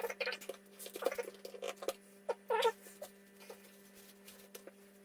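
Short squeaks and light clicks of a cleaning cloth or wipe being handled and rubbed against a smartphone's glass screen. The squeaks come in a few brief bursts over the first three seconds, then only scattered faint clicks.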